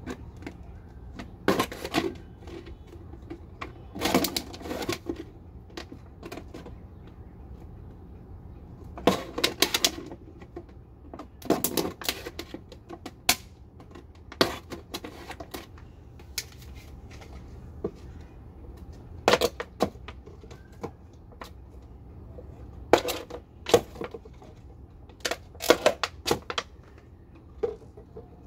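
Thin plastic drink bottle crackling and clicking as it is pierced and cut with a pointed hand tool, in irregular bursts of sharp cracks with pauses between.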